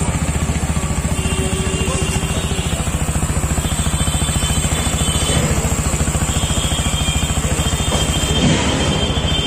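Single-cylinder engine of a TVS Apache RTR 160 4V motorcycle idling with a fast, even pulse.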